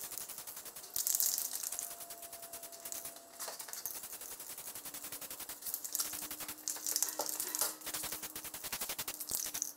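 Aerosol can of Rust-Oleum gloss orange spray paint spraying in several bursts of high hiss, with a fast crackle running through, as a light first coat goes on.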